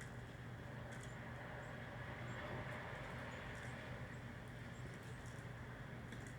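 A small bird giving short, faint, very high chirps every second or so, over a steady low hum and hiss, with a few light clicks.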